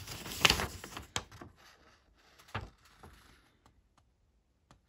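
Paper instruction manual being unfolded and handled: a rustling crackle, loudest about half a second in, then a few light taps and softer rustles.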